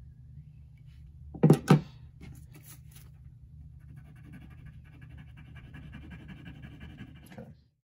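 A phone is set down on a wooden desk with two sharp knocks, followed by a few lighter clicks. Then a pencil scratches on paper for about four seconds, over a low steady hum.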